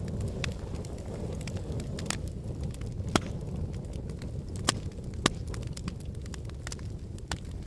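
Wood fire burning in a fireplace: a steady low rumble of the flames with scattered crackles and sharp pops, the loudest pops about three, four and a half and five seconds in.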